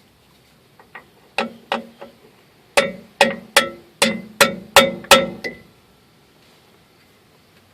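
Hammer striking a metal brake part: a few light taps, then seven hard blows about two a second, each with a short metallic ring.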